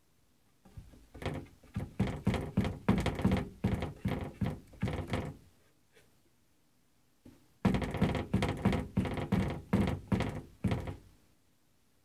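Cupboard door knocking and rattling as a cat paws at it, trying to pull it open: two runs of quick thunks, several a second, with a pause between.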